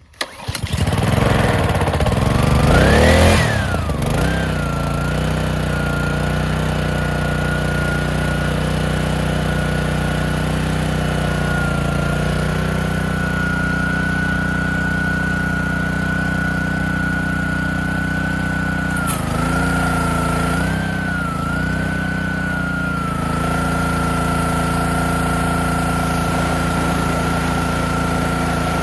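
Honda GCV190 single-cylinder pressure-washer engine pull-started on full choke, catching at once and revving up for about three seconds before settling into steady running with a steady high whine. Its speed wavers briefly about two-thirds of the way through, then holds steady again.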